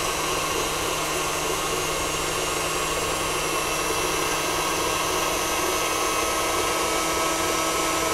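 KitchenAid stand mixer running steadily, its flat beater turning through creamed butter and sugar while beaten egg is added a little at a time.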